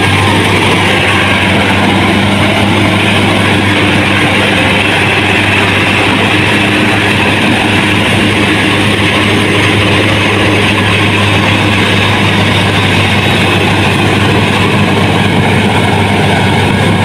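Engine of a rice-cutting machine running steadily at close range: a loud, even drone with a low hum.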